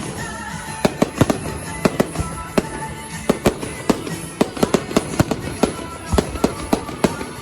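Fireworks display: irregular sharp bangs from exploding shells, often two to four a second, over music.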